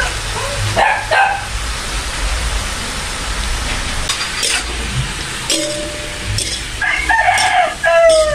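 A rooster crowing near the end, a pitched call with a falling close. Before it, a spatula scrapes against a metal wok as cabbage and vegetables are stir-fried.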